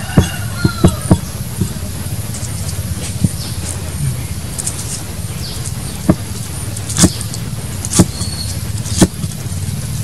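Cleaver chopping green onions on a thick wooden chopping board: sharp knocks of the blade striking the board, several in quick succession in the first second, then single chops about once a second near the end, over a steady low background hum.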